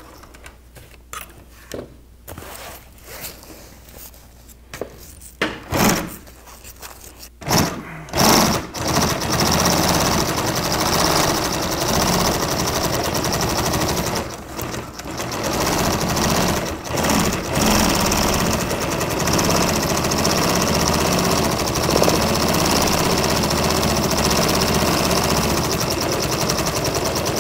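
Industrial sewing machine stitching a zipper onto heavy canvas, running almost continuously from about eight seconds in, with two brief stops. Before that, scattered clicks and knocks of hands working at the machine.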